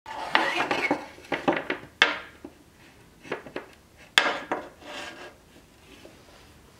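Steel longsword being shifted and set down on a wooden board: a run of sharp metal-on-wood clinks and knocks in the first two seconds, then single louder knocks about two and four seconds in, with light scraping between.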